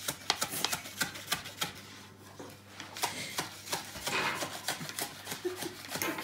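Spatula scraping and clicking against a metal baking tray as a baked flatbread is worked loose from it: a run of irregular sharp clicks and scrapes, with a longer scrape about four seconds in.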